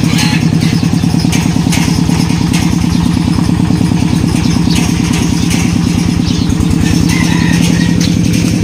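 Small engine of the vehicle towing a loaded farm trailer, running steadily with a fast, even beat just after it has been started, as the trailer pulls away.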